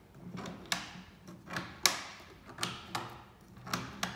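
A series of sharp clicks and knocks, about eight in four seconds and loudest a little under two seconds in, from hard plastic and metal parts being handled as the bottom tablet guide is fitted and fastened onto a tablet-counting head.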